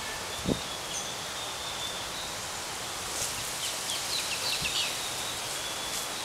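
Outdoor ambience: a steady hiss with a faint high whistle tone, a soft thump about half a second in, and a run of short high chirps in the middle.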